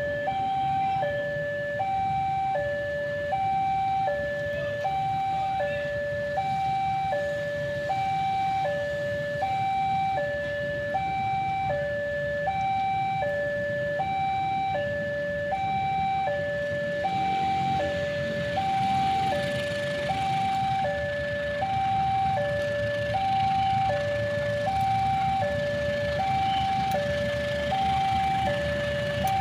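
Railway level-crossing warning alarm sounding a steady high-low two-tone pattern, about one cycle a second, signalling an approaching train. The low rumble of a diesel locomotive grows beneath it toward the end.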